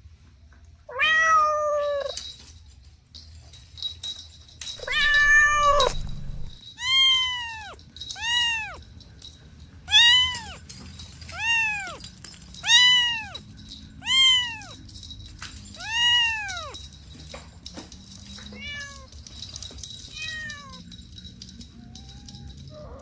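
Kittens meowing. Two longer, lower calls come first, then a run of about eight short, high meows, each rising and falling in pitch, roughly one every second and a half. A few fainter meows follow near the end.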